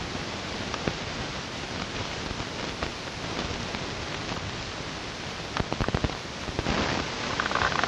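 Wind rushing on a camcorder microphone, a steady noisy hiss, with a few short clicks about three-quarters of the way through.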